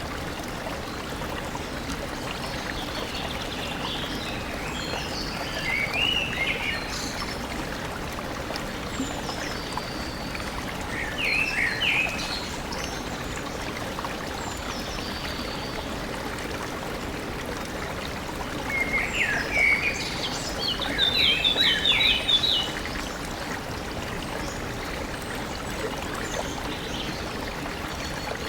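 Steady rush of a flowing stream, with birds calling over it in short groups of quick, sweeping notes, three times, the longest and loudest near three quarters of the way through.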